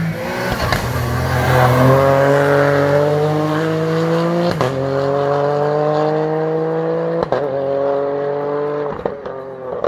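Rally car engine accelerating hard out of a hairpin and away. The pitch climbs steadily in each gear, with quick upshifts about four and a half and seven seconds in, and the sound fades near the end.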